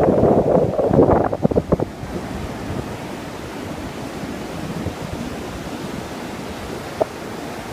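Wind buffeting the microphone for the first couple of seconds, then the steady wash of ocean surf, with one brief click near the end.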